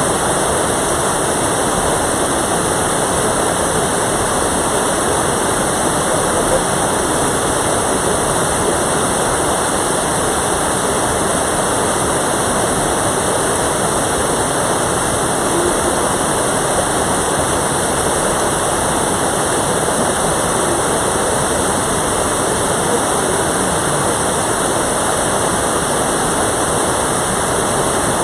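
Mountain valley stream's water rushing, a steady loud noise without let-up.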